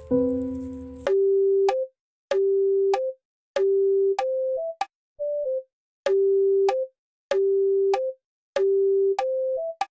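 Outro music: a chord fades out about a second in, then soft electronic tones play a short, repeating phrase, a longer low note followed by a brief higher note, about every second and a quarter, with silence between.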